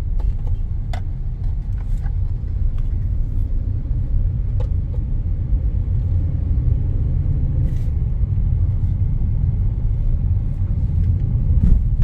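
Steady low road and engine rumble in the cabin of a moving Hyundai i20, with a few faint scattered clicks. The clicks fit the car's rattle on uneven roads, which came from spectacles loose in the sunglass holder.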